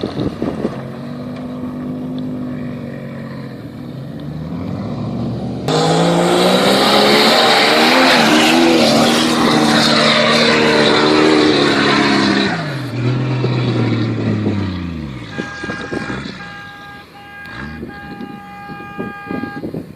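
Off-road vehicle engine revving hard on sand, its pitch climbing under a loud rush of noise that starts suddenly, then falling away as the revs drop. Near the end comes a series of steady beeping tones.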